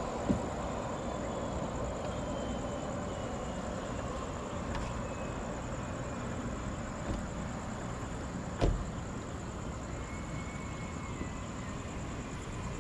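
Steady distant rumble of a taxiing Boeing 767-300F freighter's jet engines, with a faint high whine that slides in pitch. Two short sharp knocks cut through it, one right at the start and one about nine seconds in.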